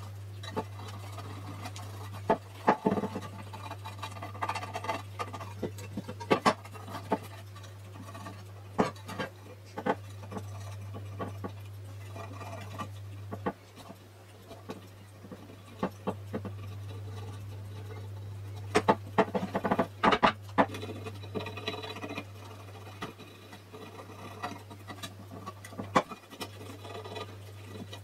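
A small screwdriver scraping and picking old gasket material off the flange of an aluminium camshaft oil seal retainer: irregular scratches and sharp clicks, thickest in a flurry about two-thirds of the way through. A steady low hum runs underneath.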